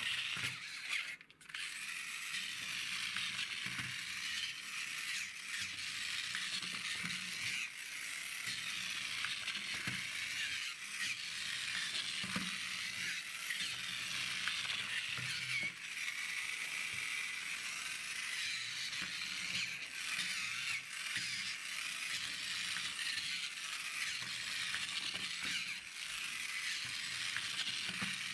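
Toy car's motor and plastic gears whirring steadily as it drives across a wooden tabletop, with a brief drop-out about a second in.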